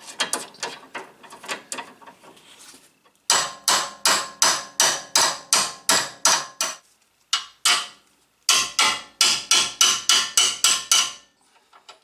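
Quick, rhythmic metallic strokes of a hand tool working on a car's front stabilizer bar link, about three a second. A fainter run comes first, then two loud runs begin about three seconds in, separated by a short break.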